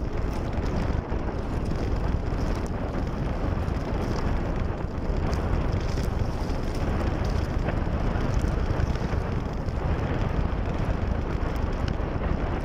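Wind buffeting the microphone at sea: a steady, loud low rumble of noise, with a few faint clicks.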